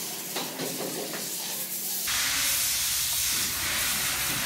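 Hands rubbing and twisting a skateboard hub-motor wheel sleeve, making scraping handling noises. About two seconds in, a loud steady hiss starts abruptly and takes over.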